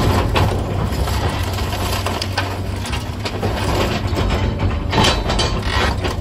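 Komatsu 200 excavator's diesel engine running steadily under load while house demolition debris cracks, crunches and knocks as it is crushed and handled, with a denser burst of cracking about five seconds in.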